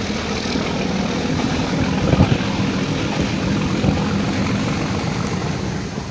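Running noise of a metre-gauge toy train heard from an open coach doorway: a steady rumble and rattle of wheels on the track, with a couple of louder knocks about two and four seconds in.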